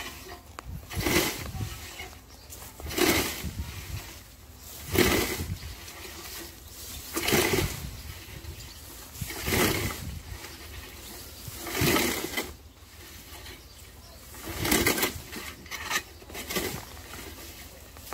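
Hand scythe swung through tall grass and weeds, a swish with each stroke about every two seconds, heard close up from a camera mounted on the scythe.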